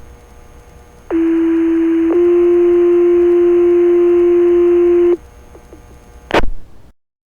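Two-tone sequential pager alert over a fire department radio channel: one steady tone about a second long steps straight into a second, slightly higher tone held for about three seconds, the signal that sets off the volunteer firefighters' pagers. A short burst of radio squelch noise follows near the end.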